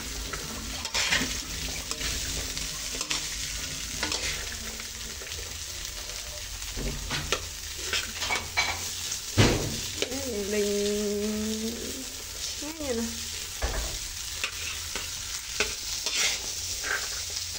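Spatula stirring and scraping corn kernels around a metal pan as they fry, with a steady light sizzle and frequent scrapes and knocks of the spatula on the pan, one sharper knock a little past halfway.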